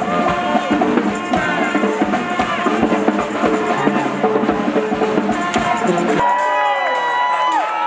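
Music with a steady percussive beat and bass; about six seconds in the drums and bass drop out, leaving held, sliding tones.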